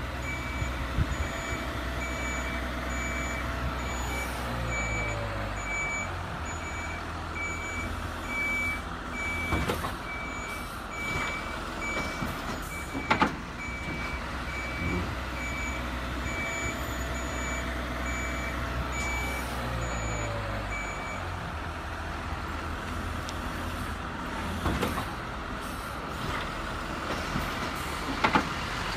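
RC model truck's electronic sound unit playing a reversing beeper, a regular run of short beeps that stops about two-thirds of the way through, over a low diesel-engine drone that steps up and down. A few sharp clicks, the loudest near the middle.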